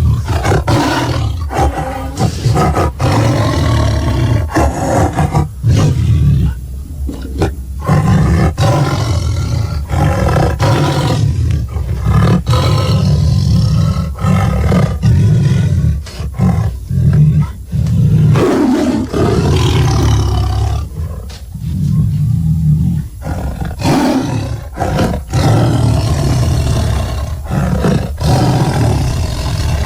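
Made-up Giganotosaurus roars and growls, layered from animal recordings. They come one after another: deep, rumbling calls a few seconds long, with short breaks between them.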